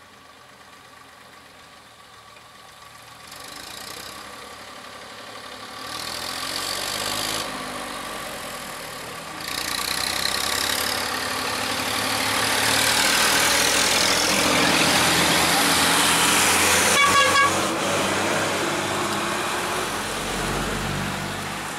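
Vehicles driving past, a bus among them: engines running and tyre noise swelling to a peak, with a quick string of horn toots near the loudest point.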